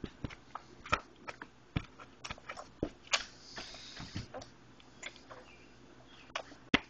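A toddler eating noodles with his hands at a plastic high chair tray: scattered, irregular small taps, clicks and mouth noises, with the sharpest click near the end.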